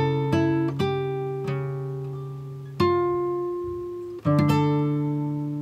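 Background music of acoustic guitar: plucked notes and chords left to ring and fade, with a new chord struck about three seconds in and another about four seconds in.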